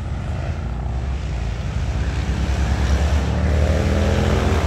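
Intense traffic noise from a busy main road: a steady rush of tyres and engines with a heavy low rumble, growing louder over the last couple of seconds as vehicles pass close by.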